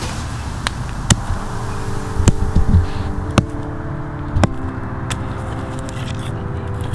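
A hammer stone striking red-hot bloomery iron on a stone anvil, sharp blows about once a second. A steady hum runs underneath.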